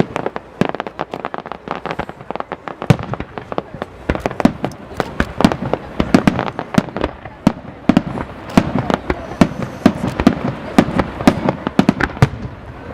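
Fireworks display: a rapid barrage of aerial shell bursts and crackling reports, several a second, growing denser from about four seconds in.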